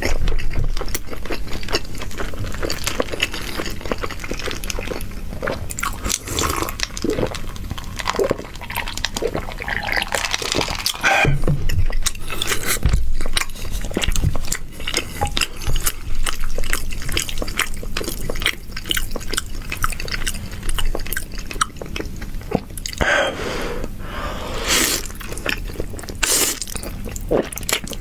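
Close-miked eating of saucy noodles: wet chewing and smacking with many short clicks, and a few longer slurps, one about ten seconds in and more from about twenty-three seconds.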